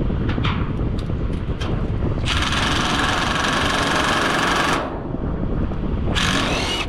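Cordless impact driver hammering in two bursts, a long one of about two and a half seconds and a short one near the end, as fasteners are worked loose on an air conditioner's outdoor unit, over steady wind on the microphone.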